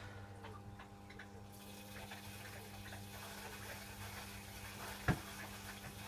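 Hoover Electronic 1100 washing machine early in a wash, with water running into the drum: a hiss that comes in about a second and a half in over a steady hum, and a single knock about five seconds in.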